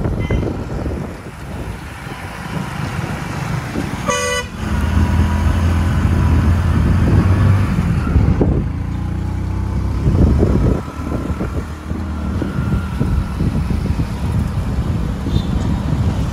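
Road noise from a moving motorcycle: engine running and wind rushing over the microphone. A vehicle horn honks once, briefly, about four seconds in.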